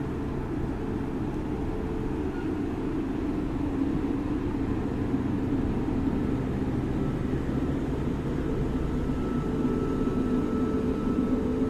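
Hamburg S-Bahn class 472 electric train running at the platform: a steady low hum with a faint high whine coming in about halfway, the whole growing slightly louder toward the end.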